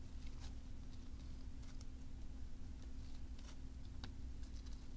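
Faint light clicks and taps of small craft pieces being handled on a tabletop, a few times, over a steady low electrical hum.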